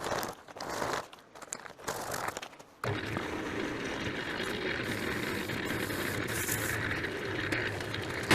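Short, irregular scraping and crunching noises, then from about three seconds in a steady churning rumble of a concrete mixer turning a wet batch of sand, gravel and cement.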